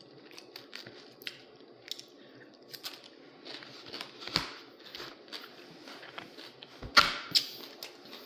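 Eating close to the microphone: scattered small clicks, crinkles and chewing, with a louder clatter about seven seconds in.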